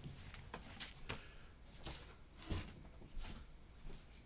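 Faint handling noise: a few scattered soft taps and rustles, spaced irregularly about half a second to a second apart.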